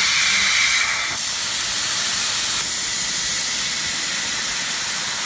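Steady loud hiss of the cutting gas jetting from the head of a 1500 W Raycus fiber laser cutting machine as it cuts 3 mm red copper plate. The hiss shifts slightly in tone about a second in.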